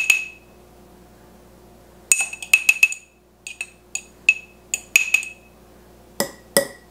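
A metal measuring spoon clinking against glass jars while spice is scooped from a small glass spice jar. About a dozen sharp, ringing clinks come in quick clusters, starting about two seconds in.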